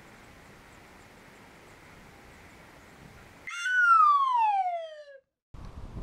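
Faint wind noise on the microphone, then an edited-in transition sound effect: one loud pitched tone gliding steadily downward for about a second and a half, followed by a brief moment of dead silence.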